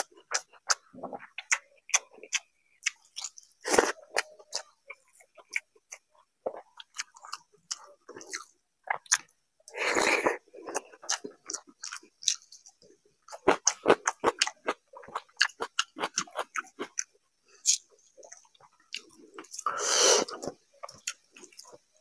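Close-up chewing of mouthfuls of water rice and fried fish eaten by hand, with many short wet smacks and crunches. Two longer, louder chewing stretches come about ten seconds in and near the end.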